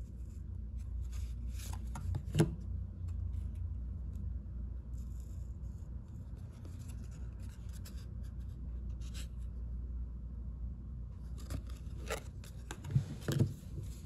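2022 Panini Prestige football trading cards being flipped through by hand, card sliding against card with soft rubbing in patches. A sharper tap comes about two seconds in and two more close together near the end.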